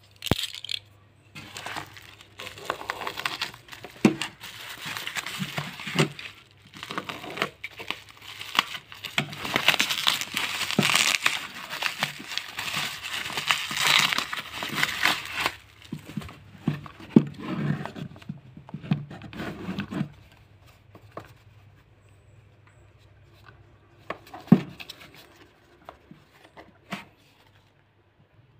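Plastic bubble wrap being crinkled and torn off a package by hand, a dense crackle for about the first fifteen seconds. It is followed by scattered knocks and scrapes as a small watch box is handled and set down.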